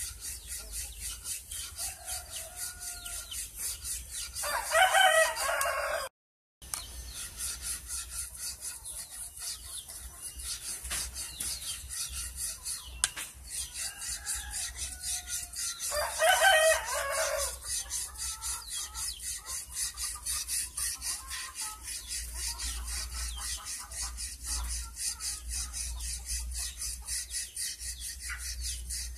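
Hand file rasping back and forth on a wooden mallet handle in steady strokes, about three a second. A rooster crows twice, about four seconds in and again about sixteen seconds in, louder than the filing.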